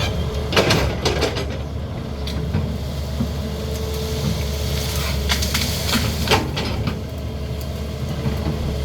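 CAT 320D excavator's diesel engine running steadily while working, with clusters of sharp knocks and cracks about a second in and again around five to six seconds in.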